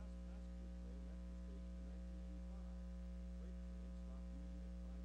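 Steady low electrical mains hum, with faint short chirps over it.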